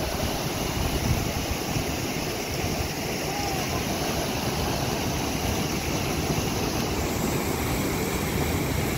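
Fast mountain river rushing and churning as whitewater pours into a pool: a steady, loud rush of water.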